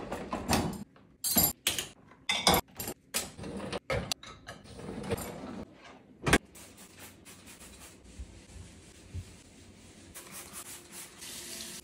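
Dishes and kitchenware clattering and knocking as a kitchen is cleared after a meal, with one louder knock about six seconds in. Near the end a kitchen tap starts running.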